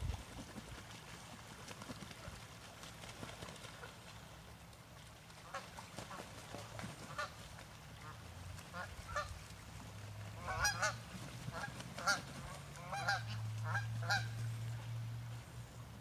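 Canada geese honking on a pond: scattered calls begin about a third of the way in and grow into a louder, quick run of honks in the second half. A low steady hum sits underneath from about halfway.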